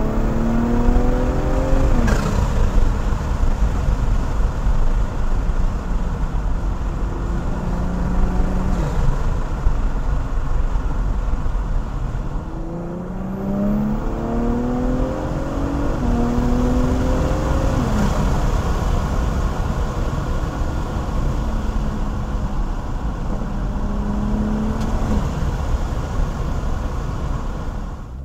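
2022 BMW M340i xDrive's turbocharged B58 straight-six, fitted with a Tactic Motorsports cold-air intake, heard from inside the cabin accelerating through the gears. The engine note climbs and drops sharply at each upshift, about four times, over a steady low road rumble.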